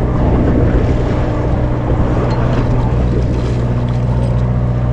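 Party boat's engine running steadily at a low, even drone, over wind and water noise.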